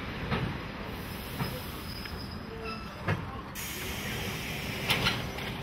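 Electric commuter train moving slowly along a station platform: a steady rumble of the cars, broken by a few sharp knocks from the running gear.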